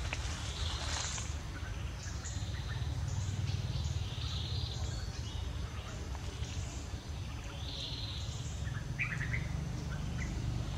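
Outdoor ambience of scattered bird chirps and short calls, with a brief burst of chirps about nine seconds in, over a steady low rumble.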